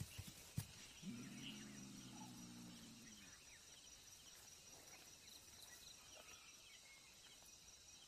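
Near silence of a night grassland: faint insect chirping, a few soft clicks near the start, and a low steady hum lasting about two seconds, starting about a second in.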